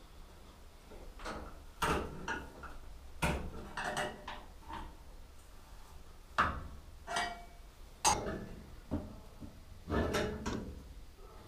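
Irregular metallic knocks and clanks, about a dozen, from hand tools working on the steel front end of a micro sprint car as a bent axle tab on the frame is forced back into place.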